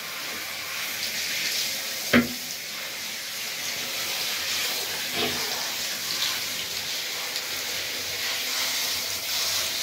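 Handheld shower spray running steadily onto a Labrador's wet coat in a bathtub, rinsing it. There is a single sharp knock about two seconds in.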